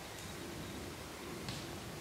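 Steady outdoor background hiss with a single soft rustle about one and a half seconds in.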